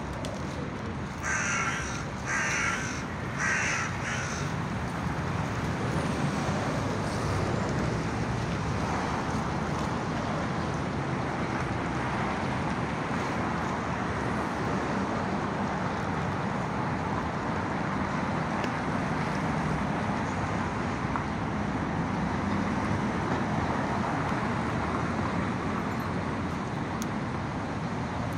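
A crow cawing three times in quick succession, harsh calls about a second apart, then steady background rumble for the rest of the time.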